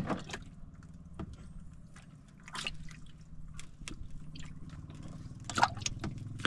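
Water dripping and splashing in scattered short bursts over a low steady hum, with a sharp knock at the start and another about five and a half seconds in.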